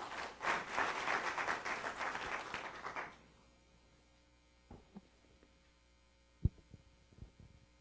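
Audience applauding for about three seconds, then dying away. A few soft knocks follow, the loudest a sharp low thump near the end, over a low steady hum.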